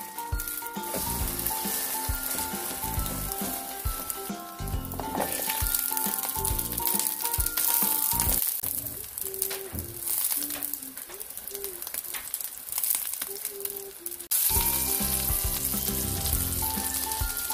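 Egg-and-vegetable patties sizzling in hot oil in a nonstick frying pan, with a spatula now and then turning them. The sizzle grows louder near the end.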